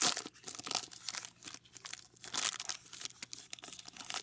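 Trading card pack wrapper being torn open and crinkled by hand: an irregular run of crackling rustles, loudest right at the start and again about two and a half seconds in.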